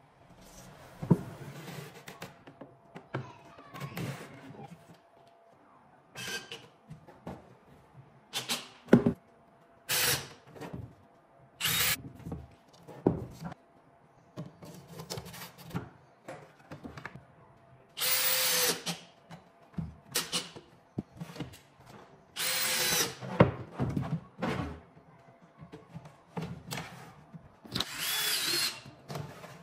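Cordless drill driving screws into a laminated wood cabinet in short bursts of about a second each, three times in the later part. Between them come short knocks and clacks of panels and a metal drawer slide being handled.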